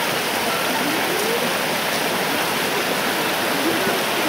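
Small woodland brook running over stones and fallen branches in a little cascade: a steady, even rush of water.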